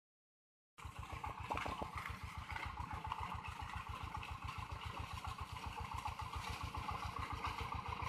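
Mini corn harvester's small engine running steadily as it cuts through standing corn, with a fast, even pulse.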